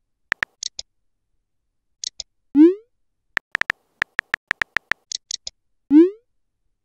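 Phone-keyboard typing sound effects: a string of short sharp taps, quickest in the middle, as a text message is typed. Twice, at about two and a half seconds and near the end, a short rising swoop sound effect.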